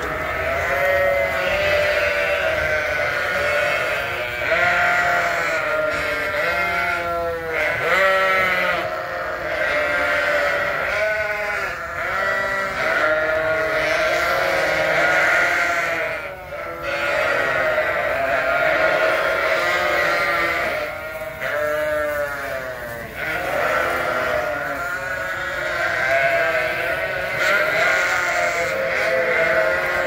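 A flock of sheep and lambs bleating, many voices overlapping without a break. The screaming is the flock calling for grain.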